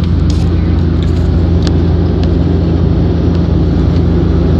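Steady engine drone inside an airliner cabin while it descends to land, with a strong low hum under it. A few light clicks come in the first two seconds.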